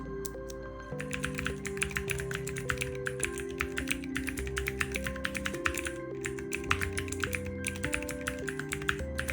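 Fast typing on a mechanical keyboard: sparse key clicks, then a dense, rapid run of keystrokes from about a second in, over background music.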